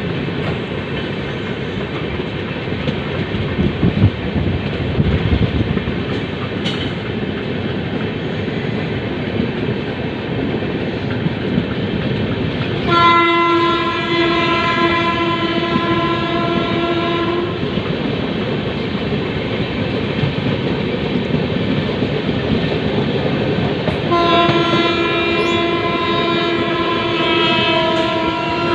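Express train running with a steady rumble of wheels on the track. A long train horn blast sounds about halfway through for some four seconds, and another starts near the end and is still going when it ends.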